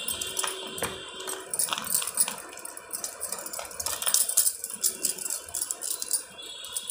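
A bar of charcoal soap with walnut granules being rubbed over a wet hand above a basin of water: irregular wet, scratchy rubbing with many small clicks.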